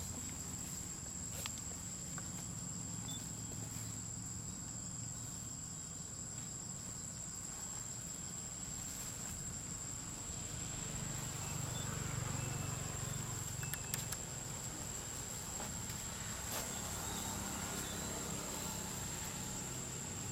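Forest insect chorus: a steady, unbroken high-pitched drone over a low rumble, with a few faint clicks.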